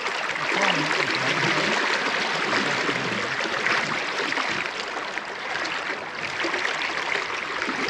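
Shallow river water running steadily over a stony bed, an even rushing hiss.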